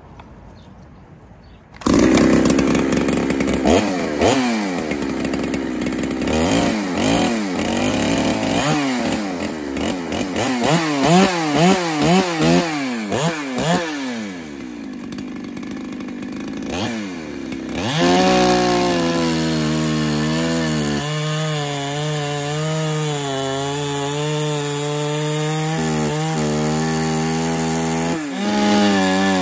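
Husqvarna 372 two-stroke chainsaw with a dual-port can muffler comes in suddenly about two seconds in and is revved up and down over and over. From about 18 seconds on it is held at high revs, cutting through a large log under load.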